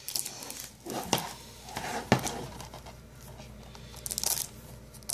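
Plastic wrap crinkling and tearing as fingers peel it off a DVD case, in irregular crackles, with a sharp click about two seconds in.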